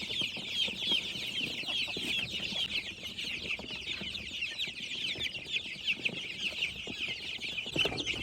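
A flock of young free-range native chickens peeping without a break while they feed: many overlapping high, short, falling chirps, with scattered light knocks underneath.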